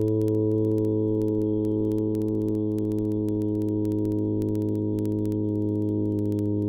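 A steady electronic drone: a held, unchanging chord of several low tones, with faint clicks ticking through it.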